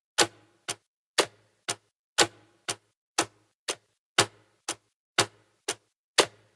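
Clock ticking at an even pace: a louder tick each second alternating with a softer tock half a second later, two sharp clicks a second.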